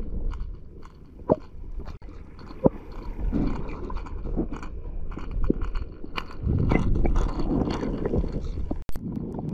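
Sea water heard through an underwater camera held just below the surface: a muffled low rumble of moving water with irregular clicks and scrapes. Two sharp short pops come in the first three seconds, and a louder stretch of sloshing comes near the end.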